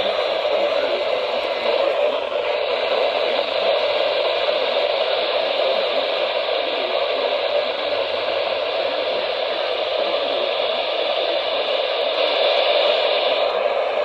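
Steady radio static: an even hiss from a weather radio receiver with no clear signal coming through.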